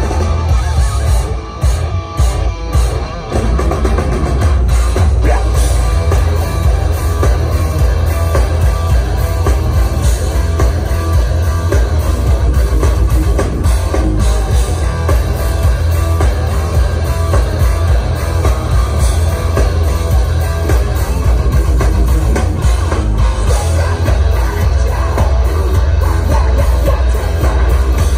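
Heavy metal band playing live at full volume, heard from within the crowd: distorted electric guitars, bass and drum kit. The music breaks off briefly a few times in the first three seconds, then drives on without a break.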